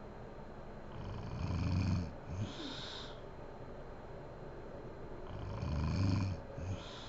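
A sleeping woman snoring: two snores about four seconds apart, each a low rattling breath followed by a short hissing breath.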